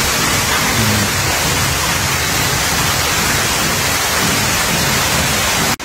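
A steady, loud rushing hiss spread evenly from low to very high pitch, cutting off suddenly near the end.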